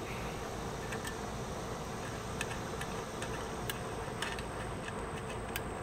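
Faint, irregular light clicks of small metal hardware being handled as the nuts come off the threaded finder-scope mounting bolts on a refractor telescope tube, over a steady background hiss.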